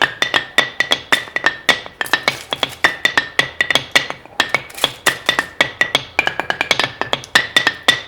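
Household objects and utensils struck as improvised percussion: a fast run of sharp strikes, several a second, each with a short ringing pitched tone, the pitches shifting partway through.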